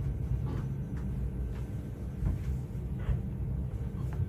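A low, steady rumble with a few faint clicks.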